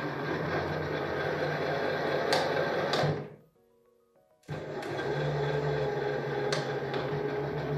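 Brushless motor driving a 3D-printed herringbone gearbox, whirring under load as it lifts 15 kg on a 10 cm arm (about 15 N·m). It runs about three seconds, stops for about a second, then runs again and stops near the end, with sharp clicks around the stops.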